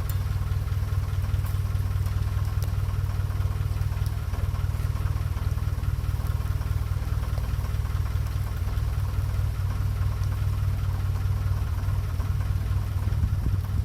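Narrowboat's diesel engine running steadily at low revs, a constant deep hum with a faint rhythmic beat.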